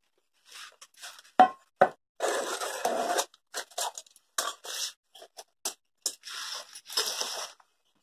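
Fresh banana leaves rustling and tearing as they are pressed and torn around the rim of a steel plate on a wooden board, in short separate bursts. Two sharp knocks of the steel plate against the board about a second and a half in are the loudest sounds.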